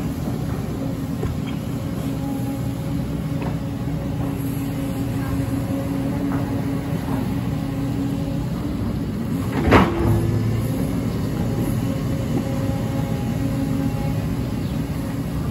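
JCB tracked hydraulic excavator's diesel engine running steadily as it digs through landslide debris, with one loud clank from the bucket working the rocks about two-thirds of the way through.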